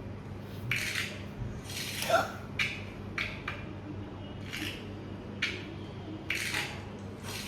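A deck of playing cards being shuffled: a string of short, irregular riffling bursts.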